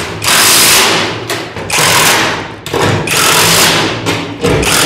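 Cordless power driver running screws into a steel garage door panel to fasten its hardware, in about four short runs of a second or less each, the motor humming under the rattle.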